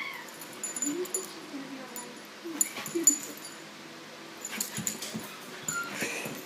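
Dogs playing over a tennis ball: low vocal grumbles with a few sharp clicks and thumps, and a short high whine near the end.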